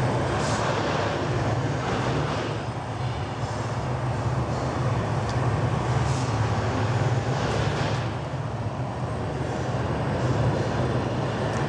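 Steady machinery drone in a workshop, with a strong constant low hum under a noisy rush that swells slightly now and then.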